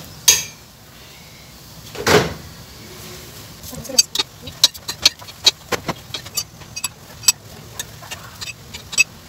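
A metal spoon clinking and scraping against a stainless steel frying pan as a chapati is flipped and oil is spread over it: a sharp clink at the start, a louder thump about two seconds in, then a run of quick irregular taps.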